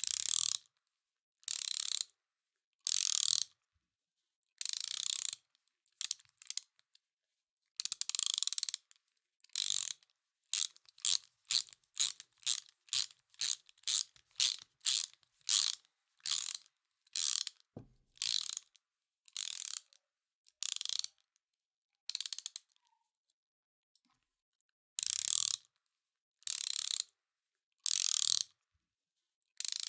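Ratchet wrench clicking in repeated short bursts as the handle is swung back and forth. There is a faster run of short strokes, about two a second, in the middle, and a pause of about two seconds near the end.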